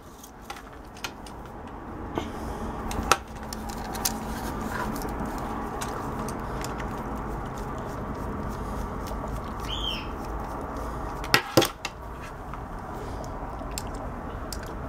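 Hair curling iron's plastic housing being handled and its screws undone with a screwdriver: scattered small clicks and taps, with a sharper knock about three seconds in and another near eleven and a half seconds, over a steady background noise.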